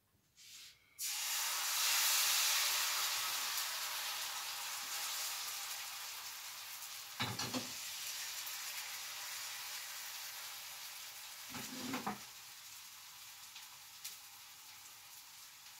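Thin pancake batter hitting a hot oiled frying pan and sizzling, starting suddenly about a second in and slowly dying down. Two short knocks come around the middle and again near 12 seconds.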